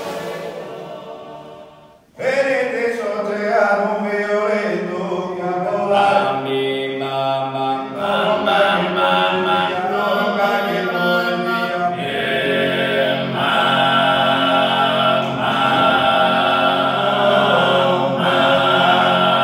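Four male voices singing Sardinian a cappella polyphony. A held chord dies away about two seconds in, then the singing starts again loudly, and from about twelve seconds in low steady droning voices sound under the melody.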